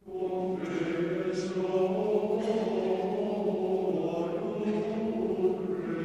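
Mixed chamber choir singing, entering together after silence right at the start and holding long sustained notes.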